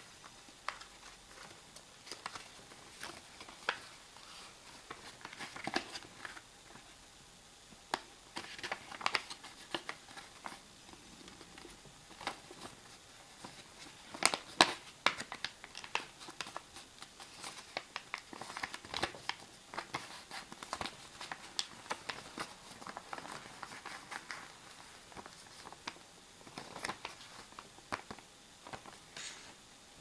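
Square of paper being folded and creased by hand: intermittent rustling and crinkling with sharp little crackles, the loudest about halfway through.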